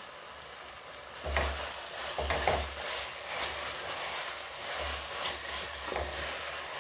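Mutton and masala sizzling in sesame oil in a pressure-cooker pan, still frying in oil with no water added yet. About a second in, a wooden spatula starts stirring, scraping the pieces around the pan in irregular strokes over the steady sizzle.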